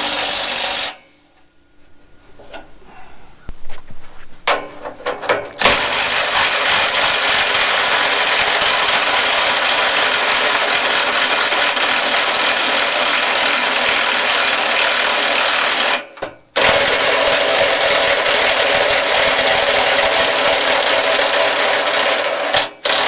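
A handheld power tool running hard in long trigger pulls. It stops abruptly about a second in, is quiet with a few knocks until about five seconds in, then runs again with a short break near the end.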